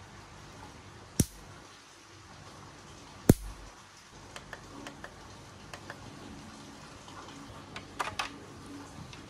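Ryobi cordless bug zapper lantern's electrified grid snapping sharply twice as insects hit it, a couple of seconds apart, with a few fainter clicks after and a double snap near the end. Heavy rain makes a steady hiss underneath.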